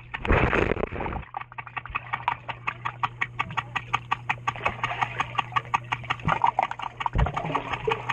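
Underwater pool sound through a submerged camera: rapid, even clicking, about six clicks a second, over a steady low hum, with a rush of water noise lasting about a second near the start.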